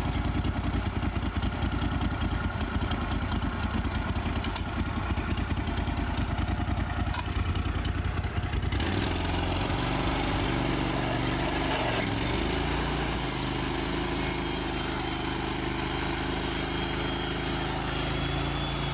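Wood-Mizer portable sawmill's engine running: a fast, uneven idle chug for the first nine seconds or so, then the sound changes to a steadier, smoother running note that holds to the end, with a brief dip in pitch near twelve seconds.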